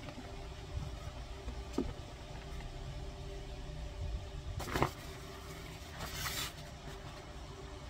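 Knee-high rubber rain boots handled, with a couple of soft knocks, then about six seconds in a short rustle of waterproof rain pants being picked up, over a steady low room hum.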